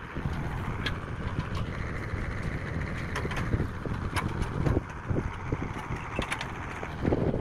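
Wind rumbling on the microphone, with a string of sharp metal clinks and knocks from steel tower braces and hand tools being handled, several of them close together near the end.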